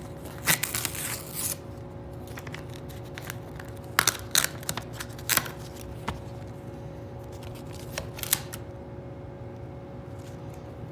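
A VHS case and its paper inserts being handled, making scattered sharp plastic clicks and paper rustles, with the sharpest clicks about four seconds in and again near eight seconds.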